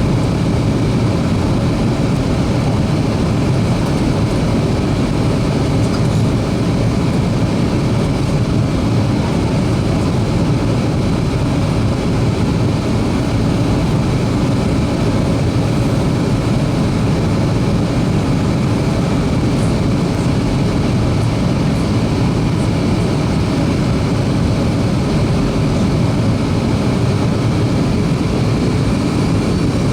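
Steady, loud cabin noise of a Boeing 737-300 descending on approach: a low rumble of CFM56 engines and airflow over the fuselage, with a faint steady whine.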